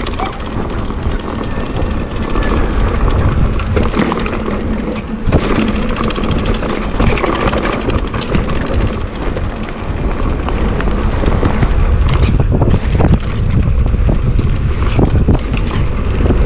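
Mountain bike ridden down a rough dirt and grass trail: wind on the microphone gives a deep, steady noise, and the bike clatters and knocks over the bumps throughout.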